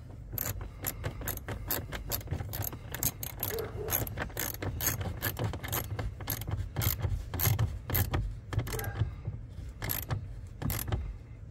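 Hand ratchet clicking in quick, uneven strokes, a couple of clicks a second with a short pause near the end, as a bolt is backed off and then done up again to clamp an earth tag.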